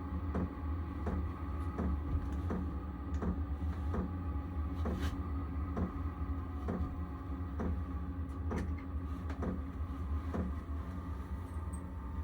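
HCALORY diesel air heater running: a steady low hum from the combustion blower, with the fuel dosing pump ticking regularly, about three ticks every two seconds.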